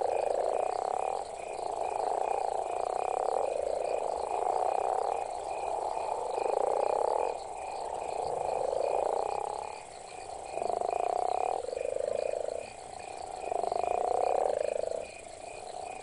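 Male western leopard toads calling in a breeding chorus: deep, snore-like advertisement calls about a second long, repeated back to back, with two or more toads overlapping at slightly different pitches.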